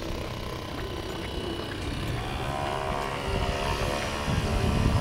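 RC model fishing boat's motor running as the boat speeds across the water, its pitched whine coming through about halfway in, over a low, uneven rumble.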